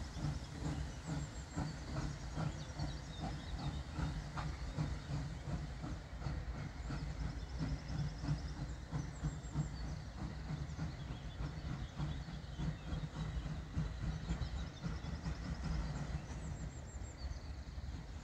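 Polish Ol49 class 2-6-2 steam locomotive pulling away with its passenger train: a steady low rumble of running gear and wheels on rail with hissing steam, and a regular run of exhaust chuffs in the first few seconds.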